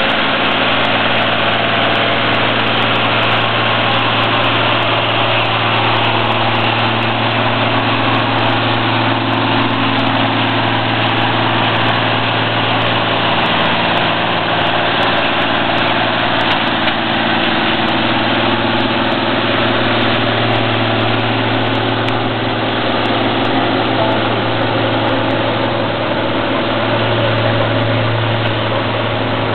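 Heavy truck's diesel engine running steadily at low revs while a wrecker tows a broken-down Scania race truck; the engine note swells slightly near the end.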